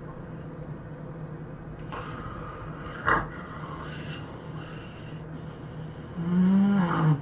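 A sleeping person snoring: breathy, rasping snorts, a short sharp snort about three seconds in, and a loud pitched snore near the end that rises and then falls.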